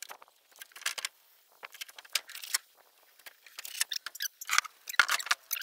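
Irregular clicks, knocks and rattles from a cordless drill-driver and a wooden lattice trellis being handled, with no steady motor run; the sharpest knock comes about five seconds in.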